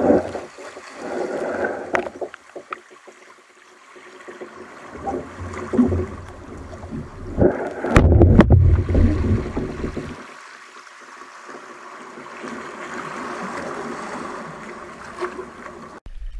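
Water sloshing and splashing around a kayak, with scattered knocks and a heavy low rumble about eight seconds in.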